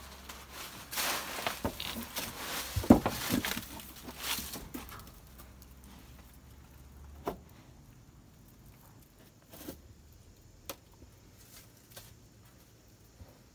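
Close rustling and rubbing right at the microphone, with one sharp knock about three seconds in, then a few faint scattered clicks.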